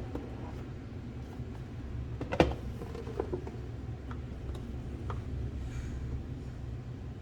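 Handling noises while unboxing: one sharp knock about two and a half seconds in, then a few lighter clicks, over a steady low hum.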